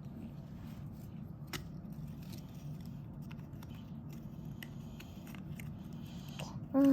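Puzzle pieces being handled and fitted together, with a few light scattered clicks over a low steady hum.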